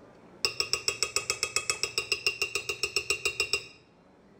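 A metal spoon tapped rapidly against the rim of a glass blender jar to knock ice cream off it: about eight ringing glassy clinks a second, starting about half a second in and lasting some three seconds.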